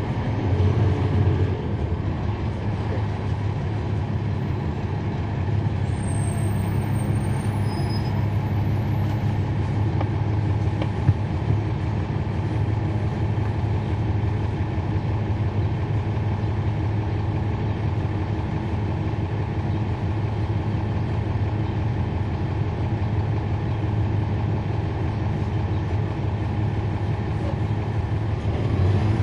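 Cummins ISL9 inline-six diesel engine of a NABI 40-foot transit bus running at a steady speed, heard inside the rear of the bus. There is a faint high squeal about six to eight seconds in and a single click about eleven seconds in.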